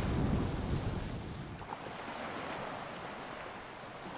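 Wind and sea water rushing past a sailboat under sail, with wind buffeting the microphone. The low rumble of the buffeting drops away about halfway through, and the whole sound fades down.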